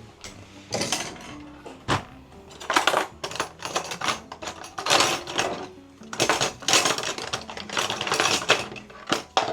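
Repeated metallic clinks and clatter of a tin can being handled and worked at by hand after its ring-pull opener has snapped, with soft background music underneath.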